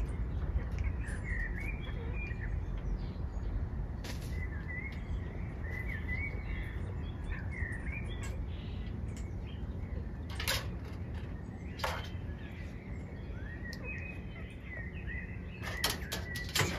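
Small songbirds chirping in the background, in short quick notes, over a steady low outdoor rumble. A few sharp clicks or taps stand out: one about ten seconds in, another about two seconds later, and a quick cluster near the end.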